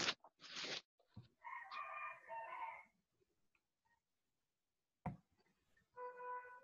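Rooster crowing faintly about a second and a half in, with a second, shorter crow starting near the end. A brief rushing noise comes just before the first crow.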